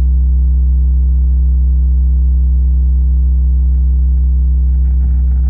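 A loud, steady low bass test tone played through PA speakers: a single unchanging pitch with faint overtones above it.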